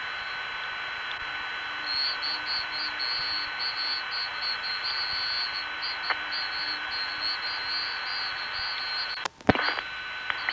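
Hiss and faint steady tones of an analog long-distance telephone line heard on a 1970s phone tape. About two seconds in, a rapid high-pitched pulsing beep starts, about four pulses a second, and near the end it stops with a sharp click and a brief dropout on the line.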